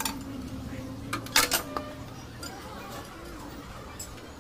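Several sharp metallic clinks of hand tools against the tractor's diesel engine parts during cylinder head fitting, the loudest two close together about a second and a half in.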